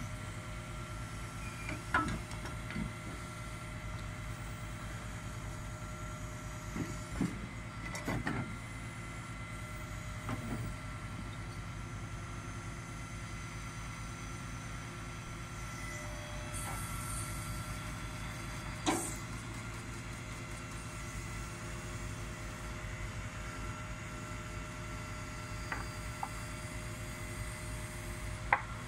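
Boom truck's engine running steadily to drive the knuckle-boom crane, with a steady whine over it and a few sharp knocks and clanks as the crane handles a load of wood joists.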